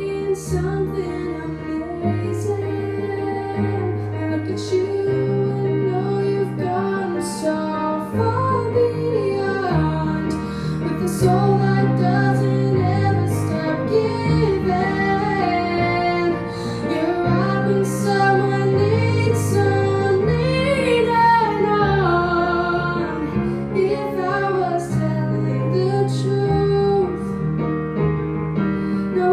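A female singer sings a melodic song over an instrumental backing with a bass line that steps from note to note.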